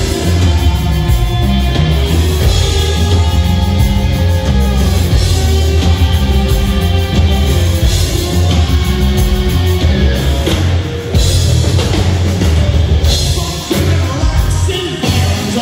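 Live hard rock band playing loud: distorted electric guitars, bass and a drum kit, with a singer's vocals on top.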